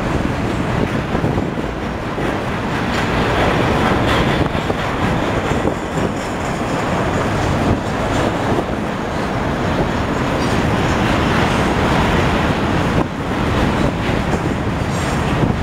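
Freight train passing at close range, a string of double-stack container cars and autoracks. The steel wheels give a steady rumble on the rails, with scattered clicks.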